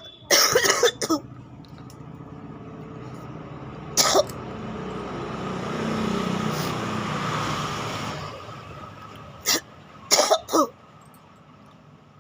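A woman coughing in short fits: a quick run of coughs right at the start, a single cough about four seconds in, and another single cough followed by a quick run near the end. Between them a rumble swells and fades over about four seconds as a vehicle passes by.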